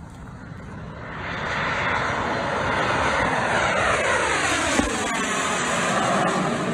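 Two Canadair CL-41 Tutor jets, each with a single J85 turbojet, passing low overhead in formation: the jet noise builds over the first two seconds, then holds, with a falling sweep in pitch as they go by. About five seconds in comes a single sharp pop from the number two aircraft's engine, which is taken for an engine problem such as a compressor stall.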